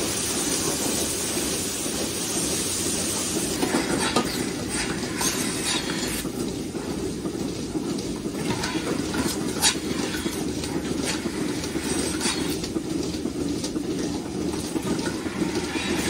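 Milking parlour machinery running: a steady mechanical rumble with frequent short clicks and hisses, which become more frequent after the first few seconds.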